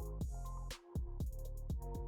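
Background music: a beat with deep kick drums that drop in pitch, sharp percussion hits and sustained tones.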